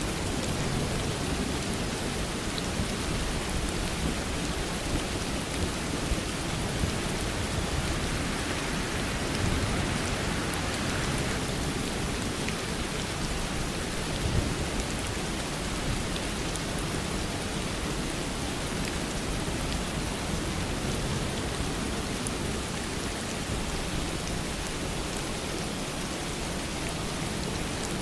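Steady rain falling, an even, continuous hiss with no let-up.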